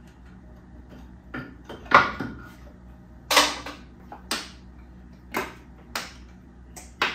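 Hand tools and bolts clinking against metal in a car's engine bay while the bell-housing bolts between engine and gearbox are undone: about seven short, sharp metallic clinks, about a second apart.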